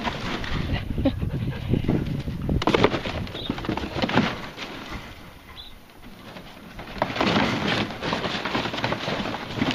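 Belgian Malinois puppy rummaging through a pile of cardboard boxes: cardboard rustling, scraping and knocking in irregular bursts, dying down about halfway and picking up again near the end.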